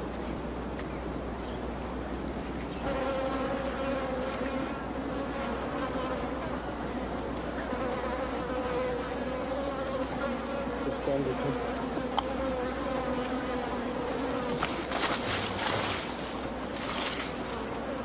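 Flies buzzing around a poached rhino's carcass: a steady, slightly wavering drone that starts about three seconds in. A few brief rustles come near the end.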